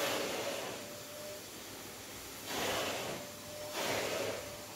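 A person breathing close to the microphone: three airy breaths about a second long each, with a faint steady tone underneath.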